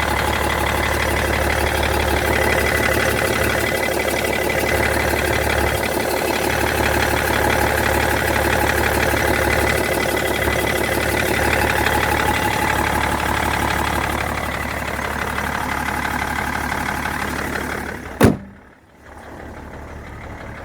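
BMW E60 530d's three-litre straight-six diesel idling with a ticking under the bonnet that the owner calls strange. Near the end comes a single loud thump, after which the engine sound drops away sharply.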